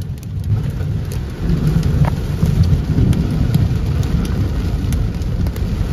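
Heavy thunderstorm rain heard from inside a car, drops ticking on the windshield and roof over a deep rumble of thunder that swells about a second and a half in.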